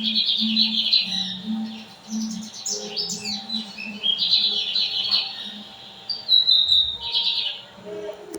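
Lined seedeater (bigodinho) singing its fast twittering song in repeated phrases, over a low pulsing hum.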